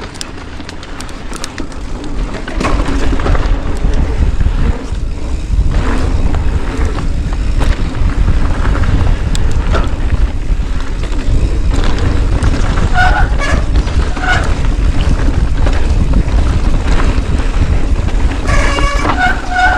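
Wind buffeting the action-camera microphone in a steady loud rumble. Near the end a horn-like pitched tone sounds in short blasts.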